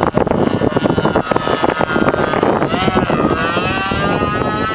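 Radio-controlled airplane's motor and propeller whining overhead. The pitch wavers up and down and drops near the end as the plane passes. For the first couple of seconds the whine is buried under choppy wind noise on the microphone.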